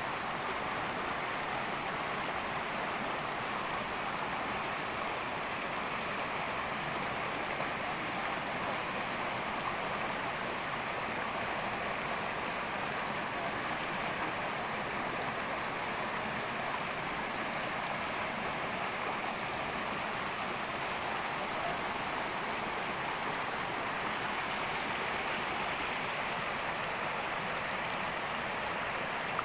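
Steady rush of flowing water from a stream or river, an even hiss with no breaks.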